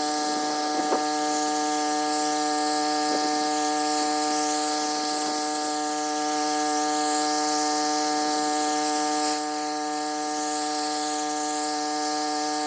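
Pressure washer running with a steady buzzing hum, its water spray hissing against the concrete and swelling and fading every couple of seconds as the jet sweeps across the driveway.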